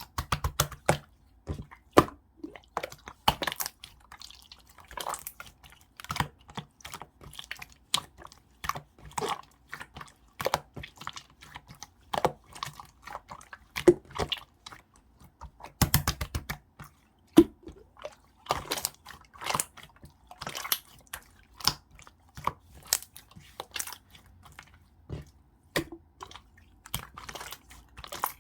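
Hands pressing and squishing clear slime: irregular wet clicks and small pops, coming in quick uneven clusters.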